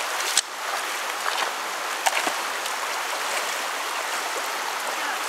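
Shallow creek water running steadily over a rippling riffle, with a couple of short sharp splashes or knocks, about half a second in and about two seconds in.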